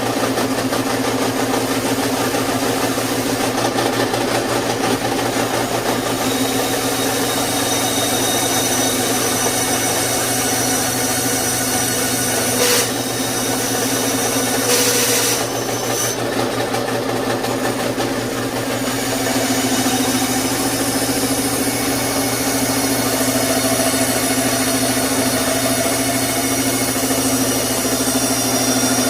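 A woodworking power saw running steadily, its motor giving a constant hum, with a brief click and then a short burst of noise about halfway through.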